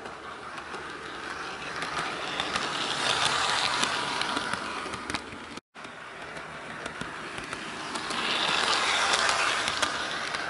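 HO-scale Walthers Trainline Santa Fe diesel locomotive running along the track: the whirr of its motor and wheels, with light clicks, swells up as it nears and fades as it moves away, twice.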